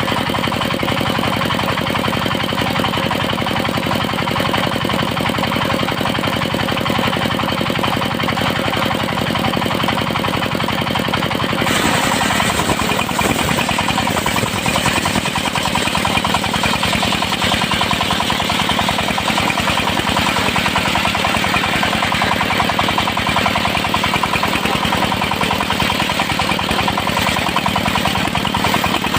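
Engine-driven sawmill circular saw running steadily. About twelve seconds in the sound turns harsher and slightly louder as the blade cuts into teak.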